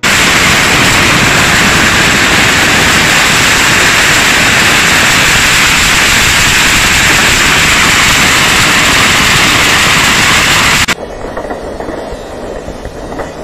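Beehive fireworks rack firing a mass of bottle rockets at once into the crowd: a very loud, dense, unbroken hiss and crackle. It cuts off suddenly about eleven seconds in and gives way to a quieter crackle of fireworks.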